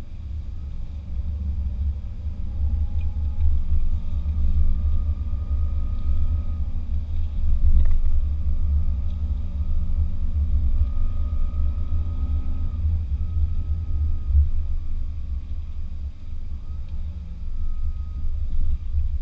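Land Rover Discovery driving over soft sand, heard from inside the cabin: a steady, heavy low rumble with the engine note rising and falling as it goes.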